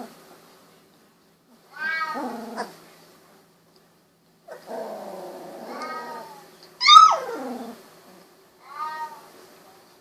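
16-day-old Golden Retriever puppies whining and crying: four high cries, one longer wavering cry in the middle and the loudest about seven seconds in, a sharp yelp falling in pitch.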